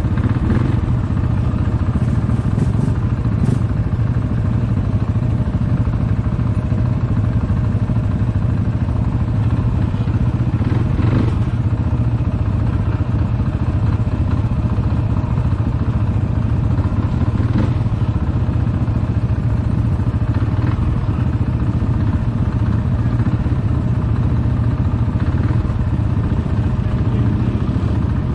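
ATV engine running steadily under way, a constant low drone, with a few short knocks or rattles along the way.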